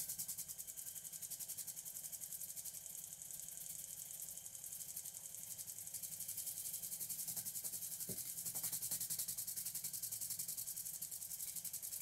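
Washing-machine motor running off a 12-volt lithium battery, spinning a three-blade propeller in air on a long PVC-pipe shaft: a steady whirring hiss with a fast, even flutter.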